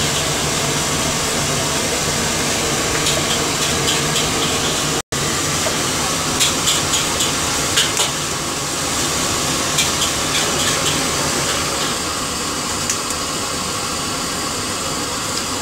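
Steady frying hiss from a martabak griddle, cutting out for an instant about five seconds in. After that come scattered light clicks as duck eggs are handled and tapped over a bowl.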